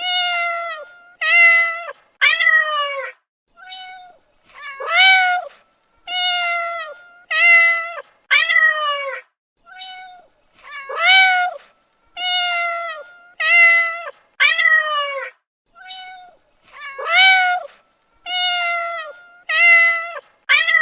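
A domestic cat meowing over and over, about one meow a second. Most are long, drawn-out calls that rise and then fall in pitch, with a few short, faint meows between them.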